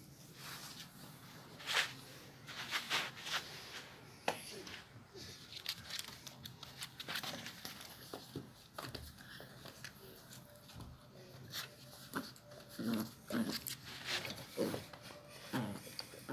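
A black-and-tan puppy playing with a hand and mouthing at it: irregular scuffling and rustling, with short puppy vocalisations in the last few seconds.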